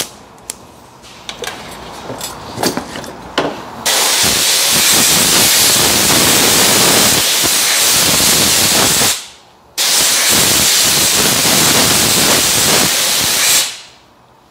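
Compressed-air blow gun hissing in two long blasts, one of about five seconds and then a shorter one after a brief pause, blown over the engine bay to check for a coolant leak after the thermostat replacement. A few light clicks and handling knocks come before the first blast.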